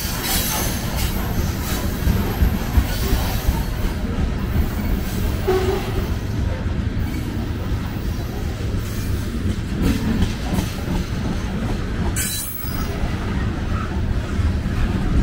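Covered hopper cars of a freight train rolling past close by: a steady rumble of steel wheels on the rails.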